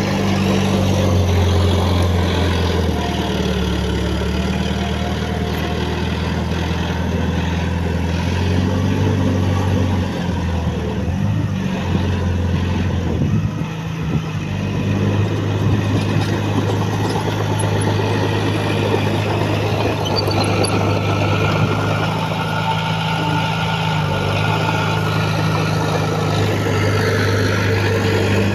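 Heavy earthmoving machinery's diesel engine running continuously. Its note shifts and dips briefly about halfway through, then holds steady again.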